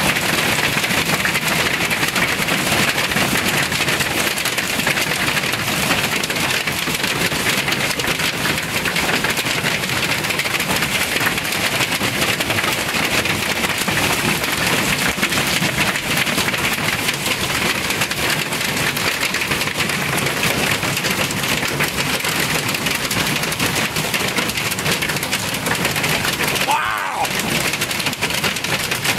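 Heavy hail pelting down without let-up: a dense, steady clatter of countless small ice stones striking surfaces, like very hard rain.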